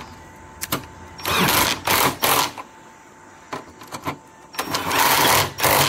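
Cordless power driver running in short bursts of under a second each, about three of them with a fourth starting at the end, as it drives the factory screws that hold the license plate and backup camera bracket; a few light clicks fall between the bursts.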